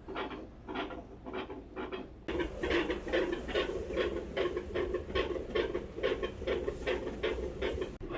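Dog's heartbeat heard through a stethoscope, a rapid, regular series of beats at about three a second; about two seconds in it switches to another dog's louder heartbeat.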